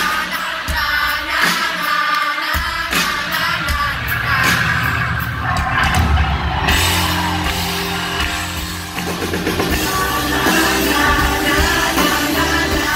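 Live pop-rock band playing, with the lead vocalist singing over drums, electric bass and guitar, heard from the audience in a large hall. The heavy low end of the bass and drums comes in about two and a half seconds in.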